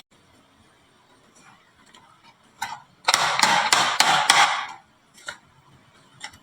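Marbles clicking and clattering against a wooden marble run: a single click, then a dense run of rapid clacks lasting almost two seconds, then two lone clicks near the end.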